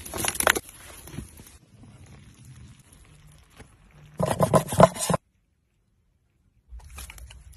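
Wood fire crackling with sharp pops, then about a second of loud crisp crunching as a hand handles the crust of a baked flatbread. A second and a half of dead silence follows before faint crackles resume near the end.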